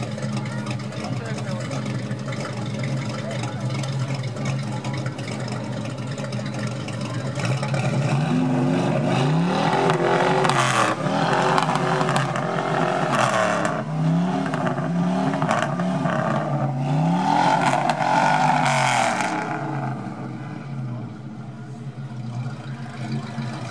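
1971 Ford Mustang Mach 1's V8 idling through its exhaust. From about eight seconds in, it is revved in a series of short blips, about half a dozen, each rising and falling in pitch. After about twenty seconds it settles back to a steady idle.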